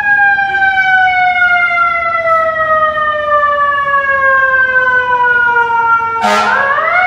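Fire truck siren wailing, its pitch falling slowly for about six seconds, then climbing again near the end, where a short loud blast sounds over it.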